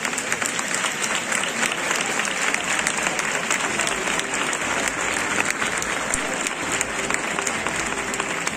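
A large crowd applauding steadily: dense, sustained clapping from many people.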